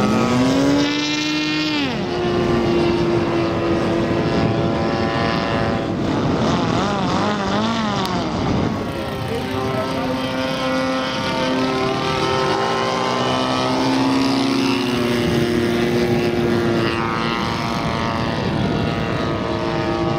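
Radio-controlled model aeroplane's EME 35cc petrol engine running in flight. Its pitch climbs and drops several times as the throttle and distance change, with a quick wavering up and down midway.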